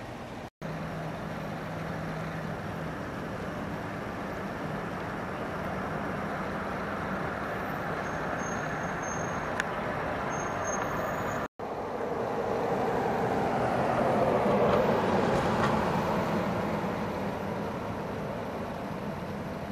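Steady road traffic noise, with a vehicle passing close by that swells up and fades away around fifteen seconds in. The sound cuts out for an instant twice.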